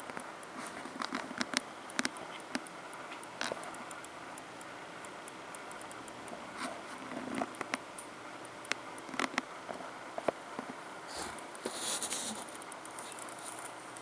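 Handling noise: scattered small clicks and light rustles over a steady hiss, with a brief rubbing rustle about eleven seconds in as a white cotton-gloved hand reaches for the coin.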